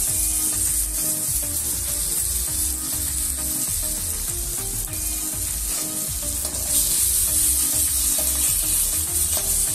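Onion and tomato masala sizzling in a steel kadai while a metal spatula stirs and scrapes it. The sizzle gets louder about seven seconds in.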